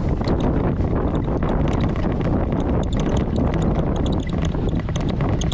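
A Jeep driving on a rough off-road trail: a steady low rumble of engine and tyres, with many small clicks and knocks throughout, and wind on the microphone.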